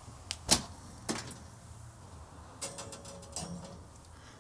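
Metal clicks and clinks from a stainless-steel Hobby Smoke cabinet smoker as its door is worked and meat on wire hooks is hung on the rail inside. The sharpest click comes about half a second in, another just after a second, and lighter clinks with a faint ring around three seconds.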